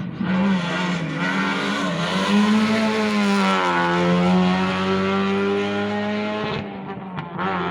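Rally car engine running hard as it passes close, its pitch sweeping down as it goes by. A steady lower engine note runs underneath.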